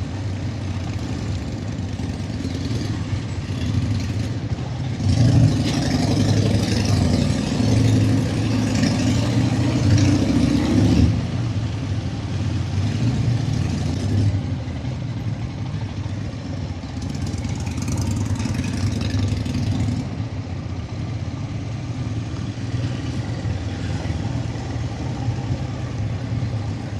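Motorcycle engine running under way with road and wind noise, louder for several seconds about a fifth of the way in and with a short hissing stretch past the middle.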